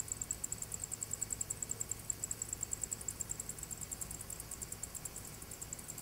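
Insects chirping in a fast, even pulse train, about nine high chirps a second, fading slightly toward the end, over a low steady hum.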